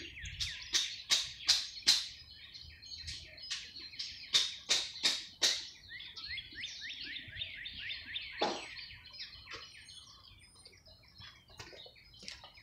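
Small birds chirping continuously in quick, repeated short notes, with two runs of louder, sharper chirps in the first half.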